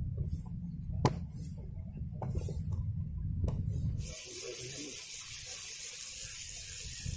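Water splashing and running at the water's edge, over a low rumble of wind on the microphone, with one sharp click about a second in. About four seconds in the rumble stops and a steady hiss carries on.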